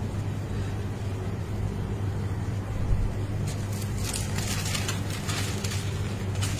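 A steady low electrical-sounding hum, with rustling and scraping handling noises starting about three and a half seconds in.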